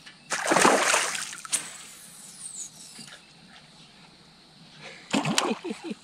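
A hooked bass thrashing at the surface right beside the boat: one loud splash lasting about a second near the start.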